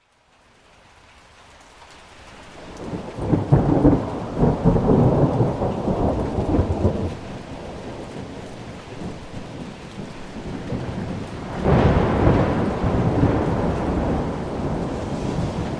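Rain fading in and falling steadily, with rolling thunder. A rumble builds from about two seconds in and rolls for several seconds. A second, sharper thunderclap comes about twelve seconds in and rumbles on.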